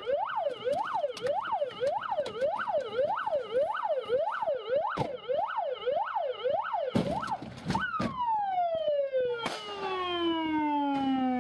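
Police car siren wailing rapidly up and down, about two sweeps a second. About eight seconds in, after a couple of knocks, it stops cycling and its pitch falls in one long glide as it winds down.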